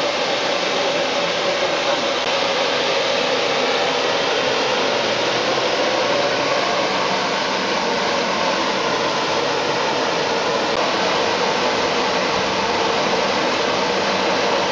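Standing GWR 6400-class pannier tank locomotive blowing off steam: a loud, steady hiss that does not change.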